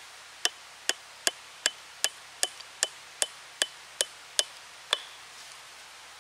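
A wooden knife handle used as a hammer, tapping a small wooden wedge into a crack in the end of a log. About a dozen sharp knocks, roughly two and a half a second, stop about five seconds in.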